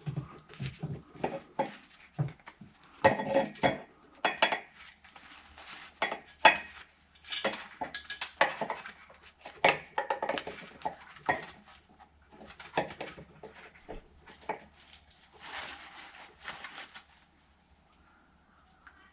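Metal parts and hand tools clinking and rattling at irregular intervals as the rebuilt stator is handled and fitted onto the Yamaha SRV snowmobile engine; the clatter stops about two seconds before the end.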